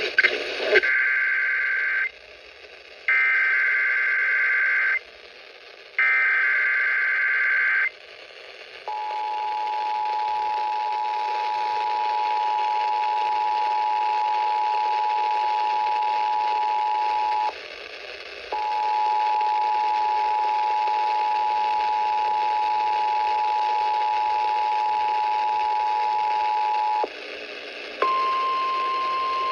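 Emergency Alert System signal over an FM radio broadcast for the North Carolina statewide tornado drill. Three bursts of SAME header data, each about two seconds long, are followed by the two-tone EAS attention signal, held about eight seconds, a one-second break, and the two-tone again for about eight seconds. Near the end a single steady tone begins.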